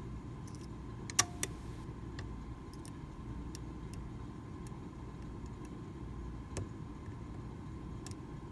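Steel lock pick clicking against the chisel-tipped pin tumblers of a Medeco Original cylinder lock during picking: scattered small clicks, two sharper ones about a second in, the first with a brief ring. A steady low hum runs underneath.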